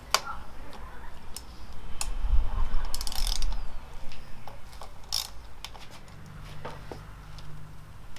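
Scattered clicks and knocks of tools and metal parts being handled during garage work, with a louder low rumbling knock about two to three seconds in.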